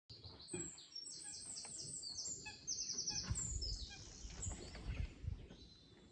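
Small songbirds singing in quick, high, repeated series of short notes, over a soft low rumble of outdoor background noise.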